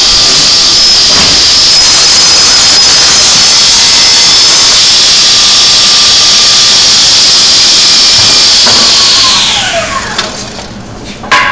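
GMC KGS660S vertical panel saw running, a loud, steady high whine with hiss from the spinning blade and motor. About nine seconds in it is switched off and winds down, falling in pitch. A sharp knock comes near the end.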